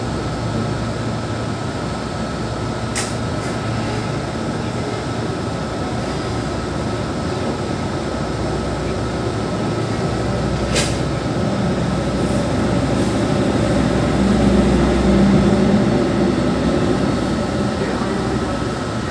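Electric KRL commuter train running, heard from inside the passenger car: a steady rumble with a faint steady whine. Two sharp clicks come about three seconds in and again near eleven seconds. The rumble grows louder for a couple of seconds past the middle.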